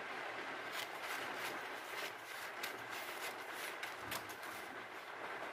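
Scissors cutting through a sheet of newspaper: a string of irregular sharp snips, about two a second, with the paper crinkling.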